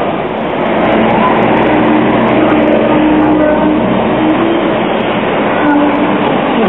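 Hong Kong double-deck electric tramcar running past on its narrow-gauge track, a loud steady running noise with a low steady hum through the middle.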